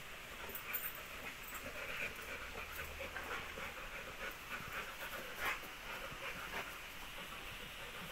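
Rottweilers panting softly.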